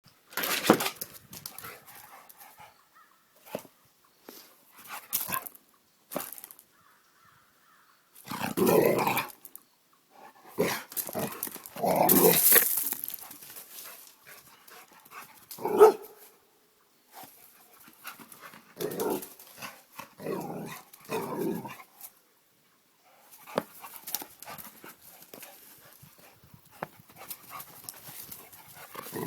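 Pit bull barking in play, in irregular bursts with short quiet gaps between them.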